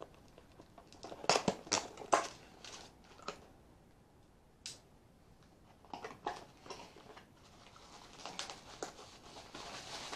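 Hands unpacking a fishing reel: a cardboard box handled and plastic packaging crinkling, with irregular rustles and sharp clicks. The loudest clacks come about one and a half to two seconds in.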